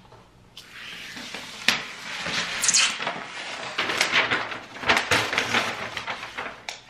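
A paper setup sheet being peeled off a monitor screen and bundled up in the hands: crinkling and rustling paper with a few sharp crackles, starting about half a second in.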